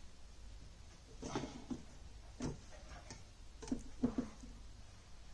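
Screwdriver tightening a screw through a metal mounting bracket into the back of a monitor: about half a dozen scattered light ticks and clicks as the tool turns in the screw head.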